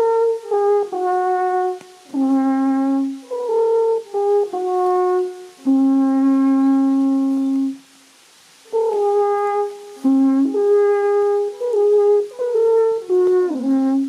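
Alphorn played solo outdoors: a slow melody of held notes stepping up and down, including one long low note in the middle, with a pause of about a second around eight seconds in before the melody resumes.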